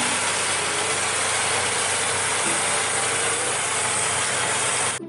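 McCormick farm tractor running while pulling a mounted reversible plough through soil: a steady, dense mechanical rush with a faint low hum that cuts off suddenly near the end.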